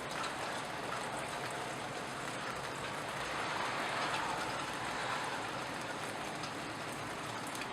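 Steady rain falling, a continuous hiss with a few scattered drips ticking. The hiss swells a little about halfway through and then eases back.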